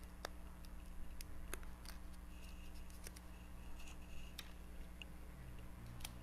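Faint, irregular little clicks and paper taps of fingertips pressing and rubbing a rub-on transfer down onto a paper tag.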